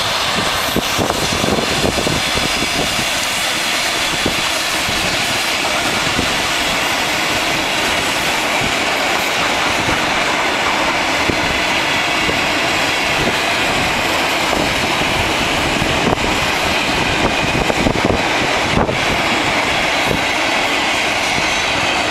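ED2T electric multiple unit passing close by: a steady, loud rolling of steel wheels on the rails, with repeated clicks of the wheels over rail joints as car after car goes by.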